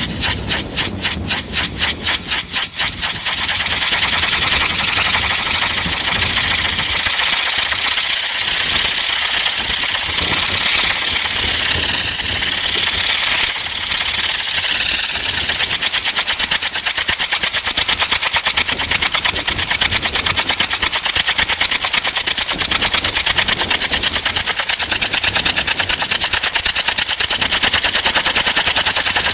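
TAM tip-jet rocket engines on the Intora rocket helicopter's rotor blades firing as the rotor turns: a rapid pulsing whoosh for the first three seconds that merges into a loud, steady hiss.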